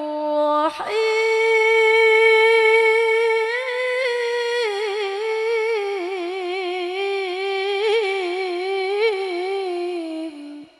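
A woman reciting the Quran in melodic tilawah style: one long held phrase that steps up in pitch about a second in and is ornamented with quick wavering turns, breaking off shortly before the end.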